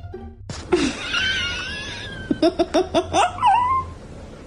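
A high wavering cry, then a quick run of high-pitched laughter, about five ha's in a row, ending in a short squeal.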